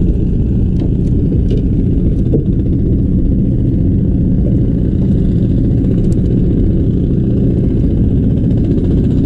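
Boat engine running steadily with a low, even drone, with a few faint clicks of fishing tackle being handled.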